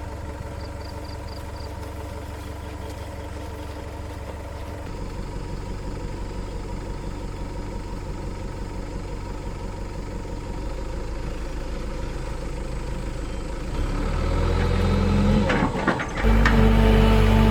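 Engine running steadily. Its pitch steps up about five seconds in and again near the end, where it gets louder.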